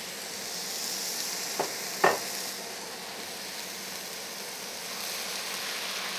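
Diced vegetables sizzling in a frying pan as sparkling water is poured in. Two sharp knocks about one and a half and two seconds in, the second louder with a short ring.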